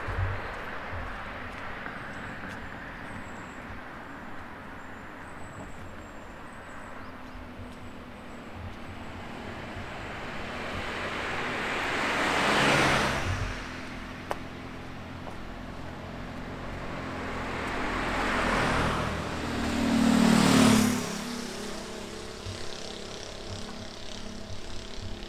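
A few cars passing by on a road one after another, each rising and then fading. One passes about halfway through, then two more close together a few seconds before the end, the last the loudest.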